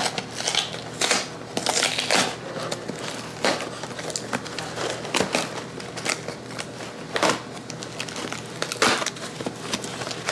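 Irregular crinkling and crunching, like material being crumpled or crushed, with sharp crackles scattered through it.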